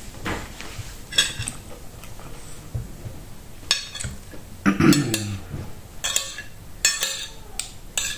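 Metal spoon clinking and scraping against a ceramic plate several times as rice and plantain are cut and scooped, with a brief vocal sound from the eater about halfway through.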